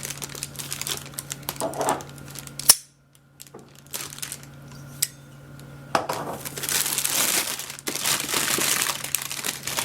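Packaging being crinkled and handled while a box is unpacked, with a sharp click near three seconds, a short quiet lull with a few small ticks, then more crinkling.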